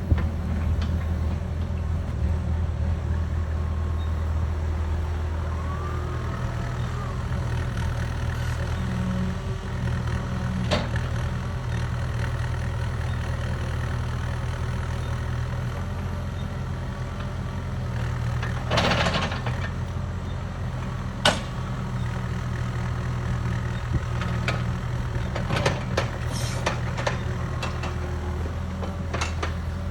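CAT 305 mini excavator's diesel engine running steadily under work, with a few sharp knocks and clanks in the second half, the loudest about two thirds of the way through.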